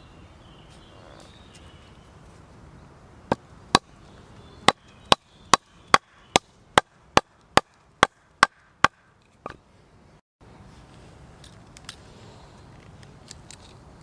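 A wooden baton knocking sharply on the back of a Victorinox Huntsman Swiss Army knife blade, driving it into the end grain of a green wood round to make an initial split. About fourteen strikes: two single knocks, then a steady run at roughly two to three a second, and one last knock.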